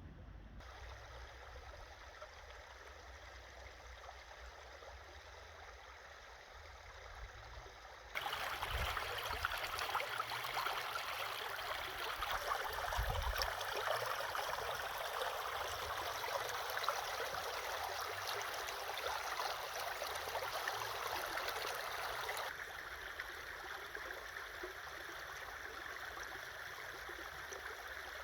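Steady rushing of running water. It gets abruptly louder about eight seconds in and drops back down near the end.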